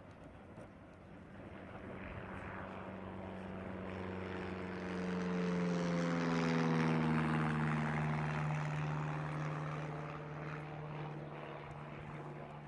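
A propeller aircraft flying past overhead: its engine drone swells to its loudest about halfway through, drops in pitch as it goes by, then fades away.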